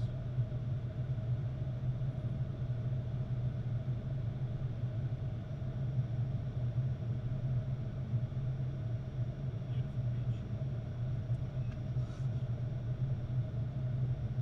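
Steady flight-deck noise inside a Boeing 737-800 on approach: a constant low drone of airflow and aircraft systems, with a fainter steady hum above it.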